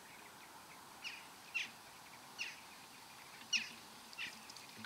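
A small bird calling with short, sharp chirps that fall in pitch. There are five of them, roughly one a second, over faint outdoor background noise.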